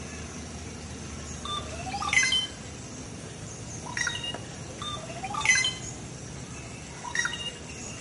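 Rufous treepies calling: loud, ringing, metallic calls, some opening with a short rising note, repeated four times about every one and a half to two seconds.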